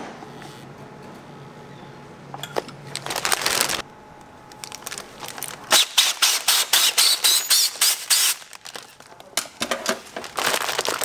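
Clear plastic air-column cushioning bags crinkling and rustling as they are handled and inflated, in a run of sharp, crackly bursts, over a low steady machine hum.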